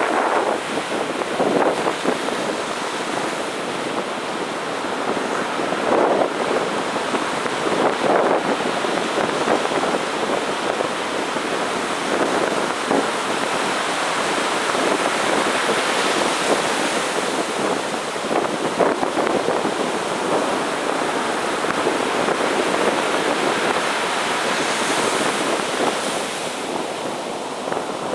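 Ocean surf on a sandy beach: waves breaking and washing in one after another in a continuous rush, with wind buffeting the microphone.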